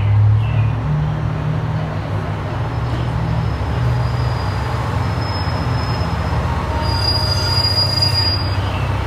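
Tosa Kuroshio Railway 9640-series diesel railcar creeping into the platform, its engine giving a steady low rumble. A thin high brake squeal sets in about halfway through and grows strongest near the end as it slows to stop.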